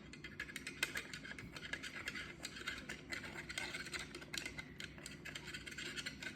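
A stirring stick scraping and clicking quickly and irregularly against the inside of a container as a mixture is stirred.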